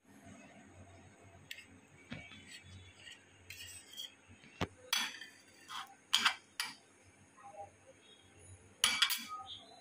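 A metal spatula and spoon clinking and scraping against a plate as a slice of food is slid onto it and set down. There are scattered light clinks, with a cluster in the middle and another near the end.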